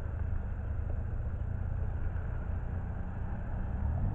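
Low, steady rumble of a freight train passing slowly. Near the end a rising engine note starts up.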